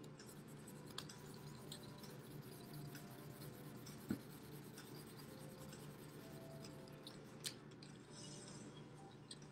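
Marker scribbling on a piece of paper plate, faint and scratchy, with a few light taps.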